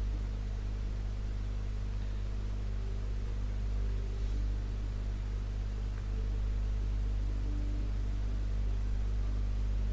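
A steady low hum with an even hiss over it: electrical or equipment noise in a small room.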